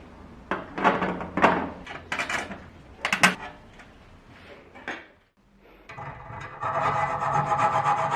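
A few loud clattering knocks of parts being handled on a workbench, then, after a short pause, steady rubbing of a tool against a workpiece starts and keeps going with a quick, even pulse.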